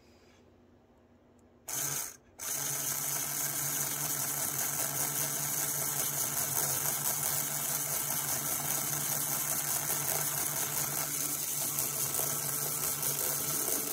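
HO-scale Rivarossi Hudson 4-6-4 model locomotive's electric motor and gear drive running steadily, its drivers spinning free off the rails, after a brief start and stop about two seconds in. It runs without binding, a sign that the driver quartering and wiring are right.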